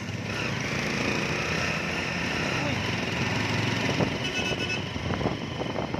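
Motorcycle riding along a street with two aboard: steady engine and road noise mixed with wind on the microphone. A brief horn-like toot sounds about four and a half seconds in.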